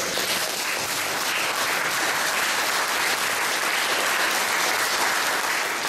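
Audience applauding: steady clapping that breaks out suddenly and dies away near the end.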